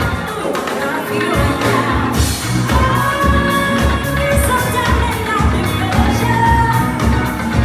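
Live band playing a song with a lead singer, drums keeping a steady beat under bass and keys through a PA, recorded on a phone's microphone.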